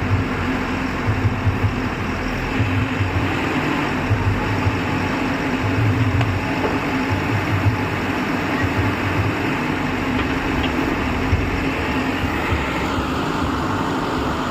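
ACE AX 124 backhoe loader's diesel engine running steadily, with an uneven low throbbing under a constant hum.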